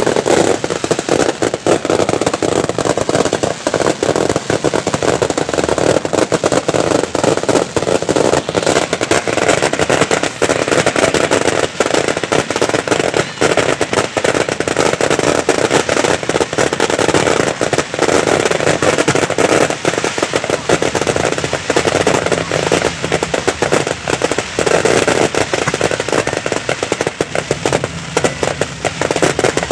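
Fireworks display: a dense, unbroken barrage of bangs and crackling bursts, loud throughout.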